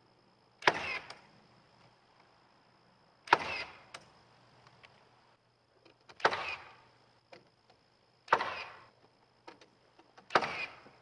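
A pneumatic nail gun firing five single shots into wood, about every two to three seconds, each a sharp crack with a short hiss of air after it.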